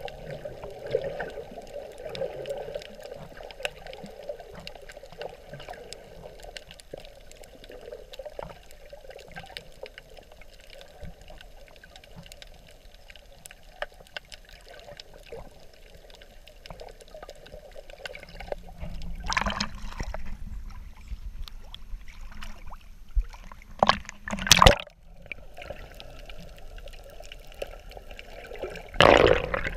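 Underwater sound picked up by a camera in its waterproof housing over a coral reef: a steady low hiss with scattered faint crackling clicks. Loud rushes of water come about two-thirds of the way in, again a few seconds later, and once more near the end.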